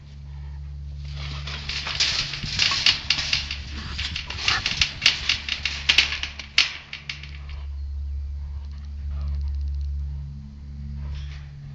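Trapped white-tailed deer thrashing inside a welded-wire hog trap, with clattering clicks and rattles from the wire panels and hay, for about six seconds, then quieter.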